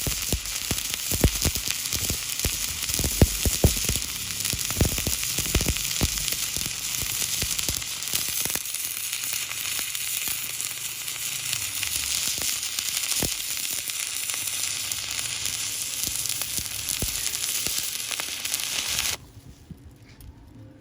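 Electric arc welding on a thin-walled square tube: a steady crackling hiss, with many sharp pops in the first several seconds. The arc cuts off abruptly near the end.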